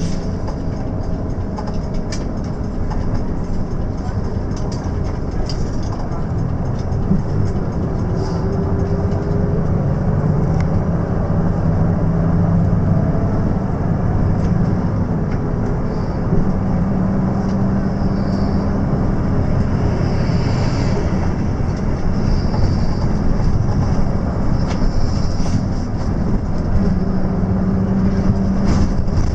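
Steady engine drone and road noise inside the cabin of a moving intercity coach, heard from up front near the driver. The engine note changes a few times as the coach drives on.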